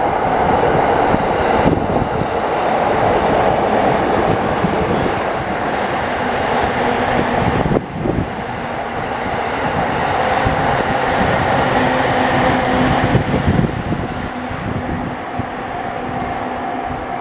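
Train passing over the level crossing: loud, continuous wheel-on-rail noise with clickety-clack over the rail joints, dipping briefly about halfway through.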